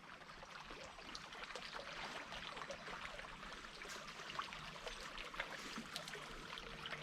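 Faint, steady rush of a flowing mountain creek, with a few small ticks over it.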